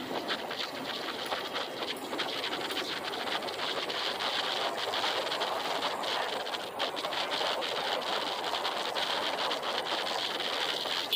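Steady rushing wind on the microphone and road noise from a motorbike riding along a paved road, with no clear engine note standing out.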